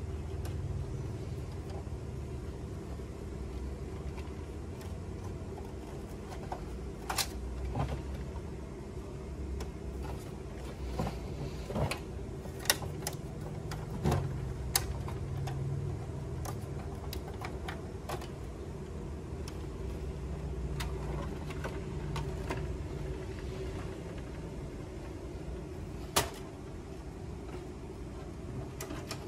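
Plastic parts of a Canon inkjet all-in-one printer being handled: a few short clicks and knocks as the scanner unit is moved and the top cover is lowered, over a steady low hum.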